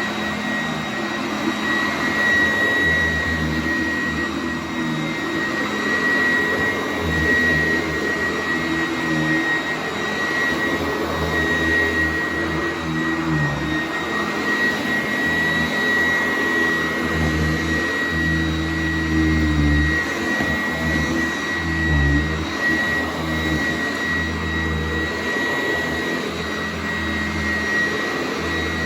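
Sanitaire S675 upright vacuum cleaner running continuously, with a steady high motor whine. The low rumble underneath rises and falls unevenly as the vacuum is worked across the floor.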